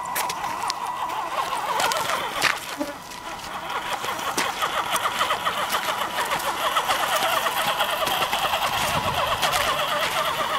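Axial SCX10 RC crawler's electric motor and geartrain whining as it drives over sand and rock, the pitch shifting a little with throttle, with a few sharp knocks from the chassis and tyres.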